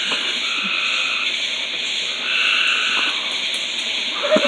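Frogs calling in a steady high-pitched chorus, with one even call held about a second and repeated roughly every two seconds.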